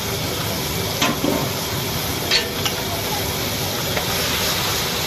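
Potato and cauliflower pieces sizzling in hot oil in a large iron kadai, stirred with a long metal spatula that knocks against the pan a few times.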